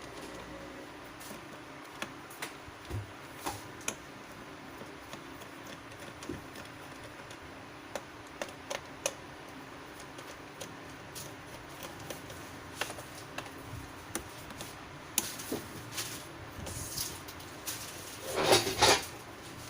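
Scattered light clicks and taps at irregular intervals over a faint steady hum, with a louder clattering, rustling spell near the end.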